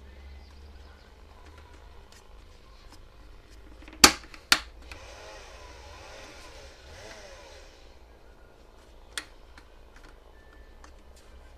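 Hands working on the plastic underside and feet of a Tefal electronic bathroom scale: two sharp clicks half a second apart about four seconds in, a few seconds of rubbing, and another sharp click near the end, with small taps throughout.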